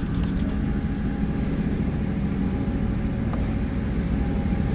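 A boat's engine running steadily, a constant low rumble heard from inside the cabin.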